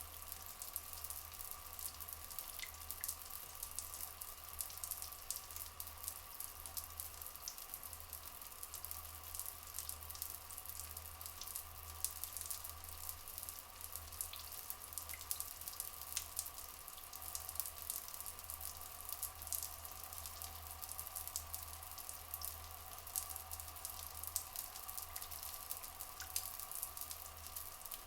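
Rainforest water ambience: a dense, continuous crackle of dripping and trickling water over a steady faint drone.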